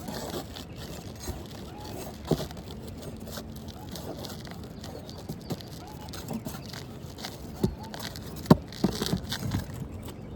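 Asphalt roof shingles being handled and lifted while a hidden fastener is searched for: scattered scraping with sharp knocks, the loudest about two seconds in and again near eight and a half seconds.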